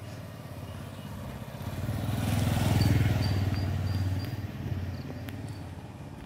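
A motor vehicle passing close by: its engine hum swells over a couple of seconds, peaks in the middle, then fades away.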